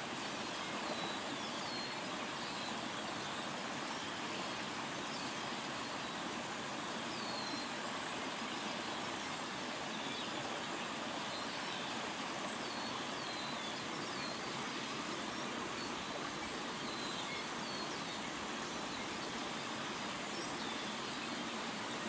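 Small stream rushing and splashing over a fallen log, a steady rush of running water. Faint short bird chirps come now and then over it.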